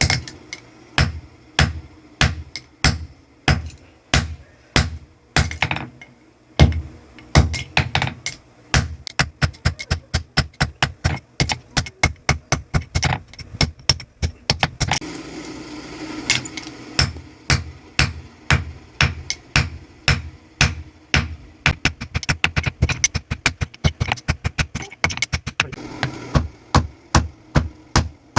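Hand hammer striking an axe head being forged on an anvil: a long, regular run of ringing blows, about two a second at first and quickening to three or four a second after a short break about halfway through.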